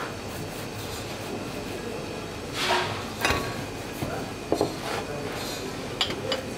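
A large kitchen knife cutting through baked flatbread onto a plastic cutting board: a crunching stroke about two and a half seconds in, then a few sharp knocks of the blade on the board, over a steady background rumble.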